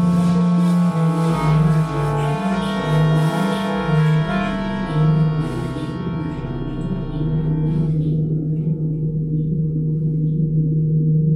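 Electronic music: a deep sustained drone under a slow stepping low melody and shimmering higher tones. The upper layers drop out about eight seconds in, leaving the low drone held on alone.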